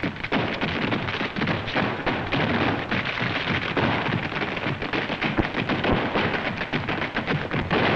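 Tap shoes of a chorus line clattering on a stage floor in a fast, dense run of taps.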